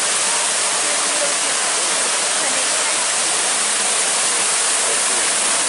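Water rushing and splashing steadily, as from a waterfall: a loud, even hiss with no breaks.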